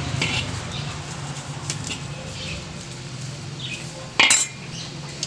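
Metal serving spoon scraping and clinking against a metal pot as meat is scooped onto tortillas, with scattered light clinks and one louder clatter about four seconds in.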